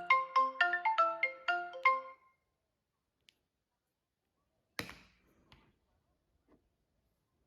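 Mobile phone ringtone: a quick melody of short pitched notes, about four a second, that cuts off about two seconds in. A single knock follows near five seconds in, with a couple of faint clicks after it.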